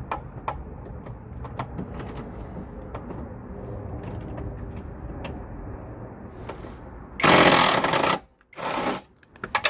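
A power tool undoing a bolt: scattered clicks for several seconds, then a loud rapid rattle about seven seconds in lasting about a second, and a shorter burst just after.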